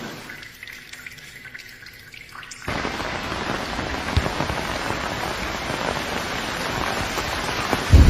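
Rain. At first it is a quieter patter of scattered drips, then about two and a half seconds in, steady heavy rain cuts in abruptly. Near the end a loud low rumble sets in.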